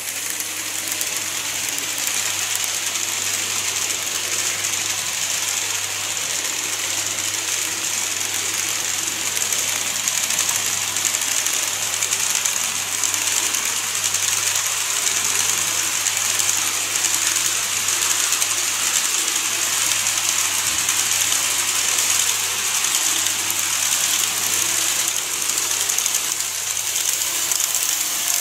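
Model electric trains running on the track: a steady whirring of small motors and wheels rolling on the rails, getting a little louder in the first couple of seconds.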